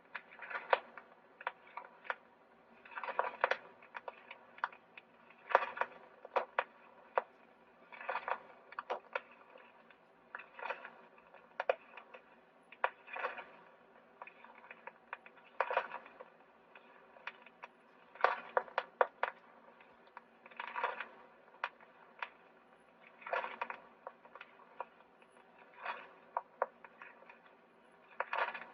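Edison Voicewriter playing back its plastic dictation disc: the stylus in the cut groove gives only clicks and crackle, with a louder scratchy burst about every two and a half seconds. No voice comes through, a sign that the test recording took no audio.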